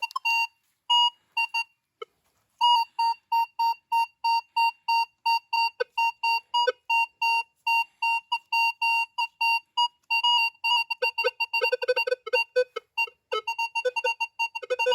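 Metal detector beeping over a buried target: short, repeated electronic tones at one pitch, about three a second, after a few scattered beeps at the start. A lower tone mixes in from about eleven seconds in. This is the signal of more metal in the hole, which the detectorist reads as a possible bronze piece.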